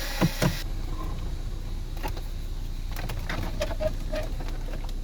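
A power drill or driver spinning out the bolt on the cluster trim stops about half a second in, with two sharp knocks. Then come scattered light clicks and taps of tools and plastic trim being handled.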